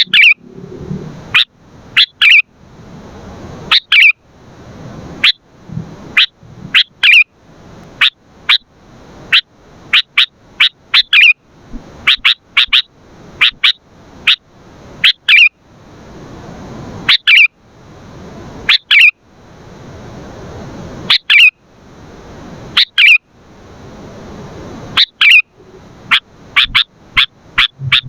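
Sooty-headed bulbul giving short, sharp calls, often in quick runs of two to four, every second or two, with a hiss swelling in the gaps between calls.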